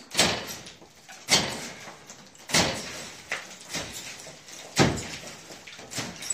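Hand demolition of old plaster: five heavy strikes and one lighter one, one to two seconds apart, each followed by a short rattle of falling debris.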